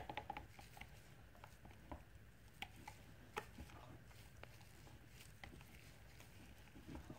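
Near silence, with faint scattered clicks and taps of a utensil stirring thick cold-process soap batter in a plastic cup, a few close together right at the start.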